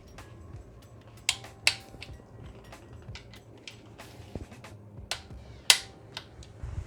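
Irregular sharp clicks and clinks of metal tools and parts being handled, with three louder clacks at about one and a half seconds and near the end.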